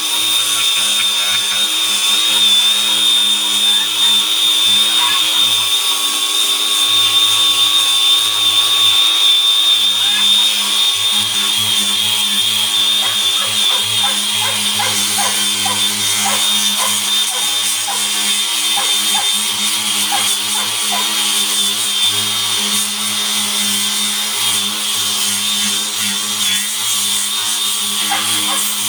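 Electric grinder fitted with sandpaper running steadily as it sands the hair side of a dried cowhide: a high whine that wavers slightly under load, with scratchy ticks as the abrasive catches the hide.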